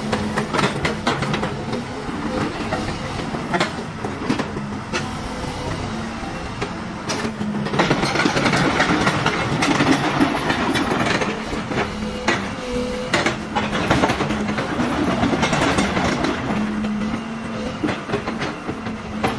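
Komatsu PC130 excavator's diesel engine running steadily, with repeated metallic clanks and rattles as the upper structure swings around on hydraulic power. It grows louder and rougher about halfway through.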